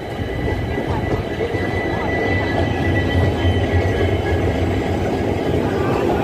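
WDG4 (EMD GT46MAC) diesel-electric freight locomotives running as they pass close by: a steady low engine drone that grows louder as the units come alongside, with rail noise and a thin high steady tone over it.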